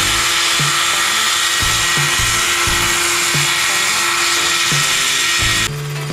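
Homemade light helicopter hovering close by, its converted Buran snowmobile two-stroke engine and rotor running hard with a loud, steady, hissing buzz and a held whine. The sound changes abruptly near the end to a lower, steadier hum.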